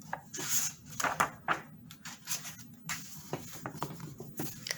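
Paper rustling and light taps from a picture book being handled, a page being turned, in a series of short, soft rustles.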